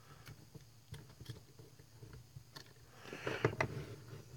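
Faint clicks and handling noise as a small circuit board is turned around and fitted back into a bench clamp, with a louder cluster of clicks about three seconds in.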